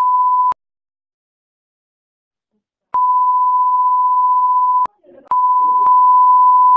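Censor bleep: a loud, steady single-pitched beep near 1 kHz that cuts on and off with clicks, sounding three times, the first two separated by silence and faint speech slipping through just before the third. It blanks out the bank card details being read out over the phone.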